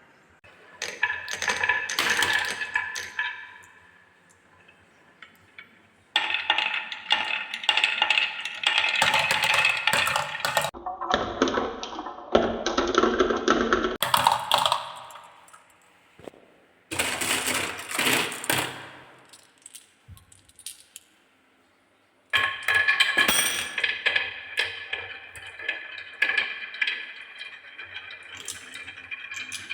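Marbles rolling and clattering down wooden tracks and stairs, a rapid run of clicks and rattles. It comes in several separate runs that start and stop abruptly, with quieter gaps between.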